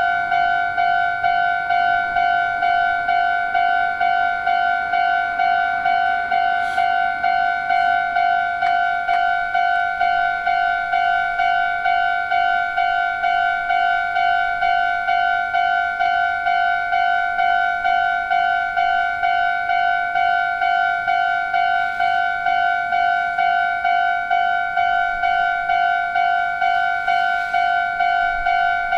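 Japanese railway level-crossing warning bell ringing its electronic 'kan-kan' ding over and over at an even pace, signalling that a train is approaching.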